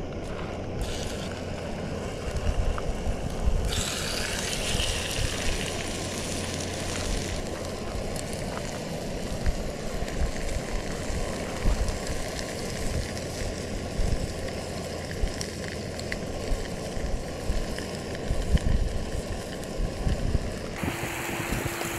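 Walleye fillets sizzling in hot oil in a nonstick frying pan on a canister gas camp stove. The sizzle flares brighter for a few seconds about four seconds in, as the fish goes into the oil, then settles to a steady fry.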